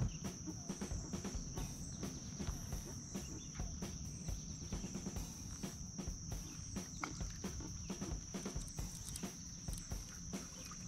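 Insects from the wooded riverbank calling in a steady, high-pitched chorus, with scattered light clicks and knocks from handling a fishing rod and reel on the kayak.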